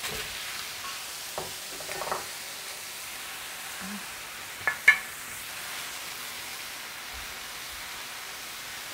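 Pork, vegetables and kimchi sizzling steadily in a hot frying pan as steamed rice is added and stirred in with a wooden spatula and chopsticks. A few short scrapes and knocks of the utensils against the pan, the loudest about five seconds in.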